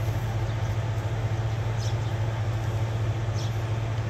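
Steady low electric hum of a homemade air compressor built from a refrigerator compressor motor, running while it pumps up a tyre.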